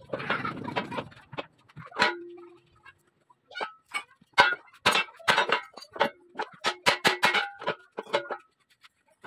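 A series of sharp metallic knocks and clinks, some leaving a short ringing tone. One comes about two seconds in, then they come several a second toward the end.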